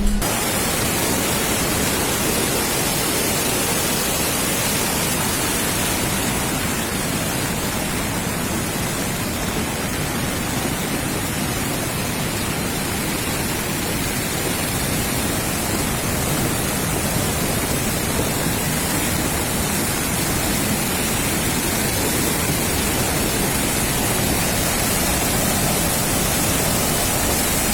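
Steady, even rushing noise of a storm, wind and rain, without a break.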